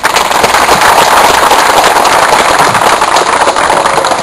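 A small crowd applauding, with dense, steady clapping that starts suddenly and eases off near the end.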